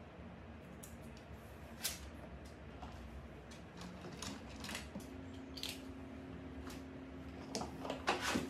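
Small clicks and taps of gel pots and tools being handled at a nail desk, a few scattered knocks with a quick cluster of them near the end. A faint steady low hum comes in about halfway through.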